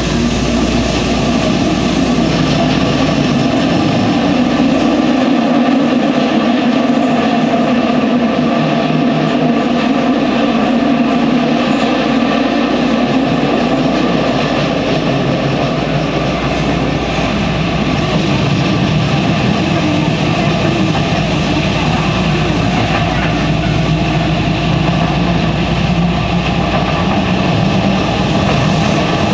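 Osaka Metro 70 series linear-motor subway car running at speed through a tunnel, heard from inside a motor car: a loud, steady running noise of wheels on rail and motor.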